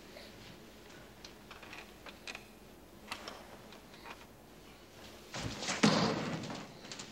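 Scattered light clicks and knocks, then one heavy thud about five and a half seconds in, with a short rumble fading after it.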